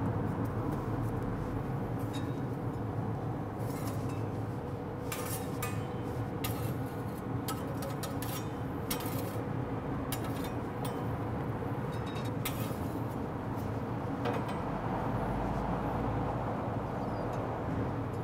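Metal spatula clinking and scraping on the grill grates of a pellet grill as flour tortillas are slid and flipped over open flame, in scattered clicks, over the grill's steady low hum and rush.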